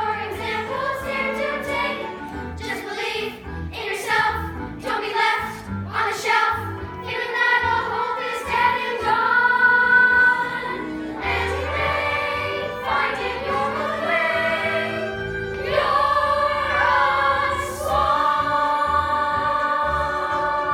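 A group of voices singing a stage-musical number over instrumental accompaniment, holding long notes near the end.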